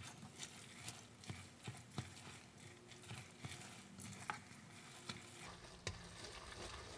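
Metal spoon stirring thick macaroni and cheese in a large stainless steel pot, giving light, irregular clinks and scrapes against the pot. A faint steady hum runs underneath.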